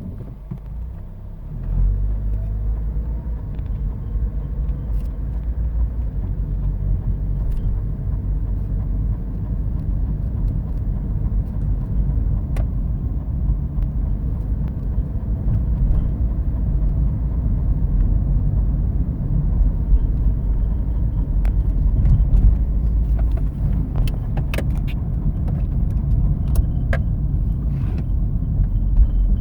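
Opel Astra with automatic transmission running, a steady low rumble that comes up sharply about two seconds in, with scattered clicks and knocks near the end. This is the unwanted noise the owner is reporting.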